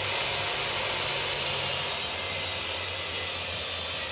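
Portable jobsite table saw running and cutting a board, with a Makita dust extractor hosed to it running alongside: a steady, loud machine noise with a low motor hum underneath.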